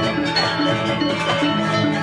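Balinese gong kebyar gamelan playing a tabuh kreasi piece: bronze metallophones ringing in fast repeated interlocking figures, with kendang drums and bamboo suling flutes.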